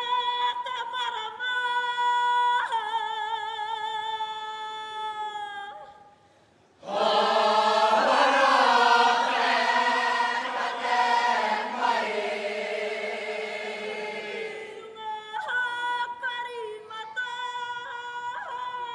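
A lone woman's voice sings long held notes with a wavering vibrato, then the whole kapa haka group, men and women, answers in unison for several seconds, unaccompanied; the lone voice takes up again near the end.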